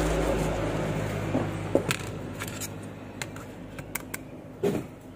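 Black plastic trash bag rustling and crinkling as a phone is pulled from it, fading away over the first couple of seconds. Then a string of small sharp clicks and taps from handling the opened smartphone's frame and internal parts.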